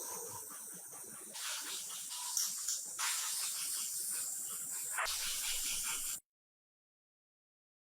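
Steady hiss of a compressed-air spray, in a few short cut-together bursts, then cutting off abruptly about six seconds in.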